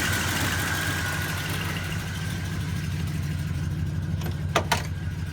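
1971 Oldsmobile Cutlass S engine idling roughly just after a hard cold start, not yet firing on all cylinders. A high whine fades out over the first two seconds, and two sharp clicks come about four and a half seconds in.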